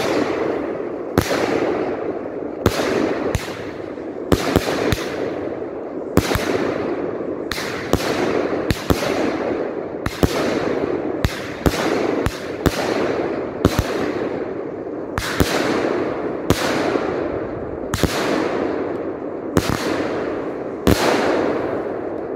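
Jorge 'Imagine' fireworks cake firing a long run of shots: a sharp bang every half second to a second and a half, each followed by a hiss that fades away, over a continuous rush of noise between the shots.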